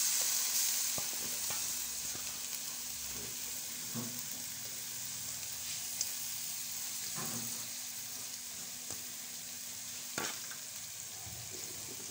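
Whole prawns and sliced onions sizzling in hot oil in a pan, a steady frying hiss with a few faint clicks.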